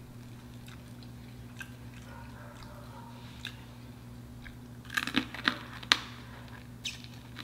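Teeth biting crispy corn dog batter off a wooden stick: a quick cluster of sharp crunches about five seconds in, after a few faint clicks.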